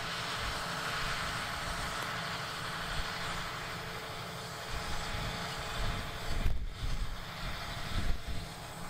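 John Deere 8400R tractor's diesel engine running steadily under load as it pulls a strip-till seeder across the field, with a few louder low rumbles in the second half.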